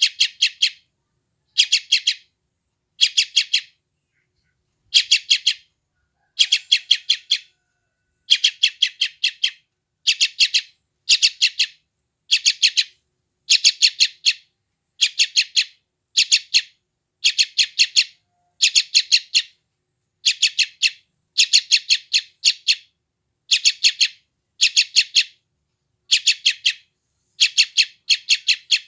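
Young yellow-vented bulbul (trucukan) giving hungry begging calls: bursts of several rapid, harsh chirps, repeated about every second or so with short silent gaps.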